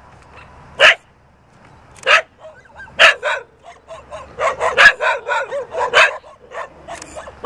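Dogs barking: a few single barks about a second apart, then a quick run of barks in the middle.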